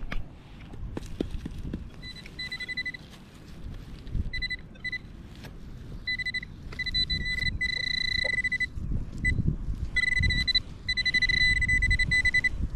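Metal detector's steady high electronic tone sounding in stretches, on and off, longer and more continuous in the second half as it closes in on a buried coin, over low rustling and thumps.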